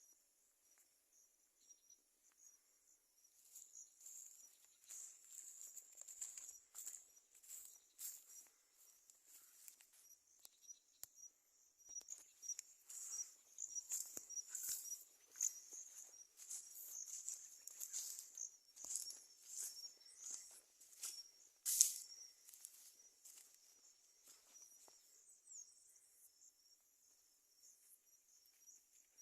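Insects, crickets by the sound tags, chirping steadily in a high, thin band, with many small crackles and rustles; one sharper click about 22 seconds in.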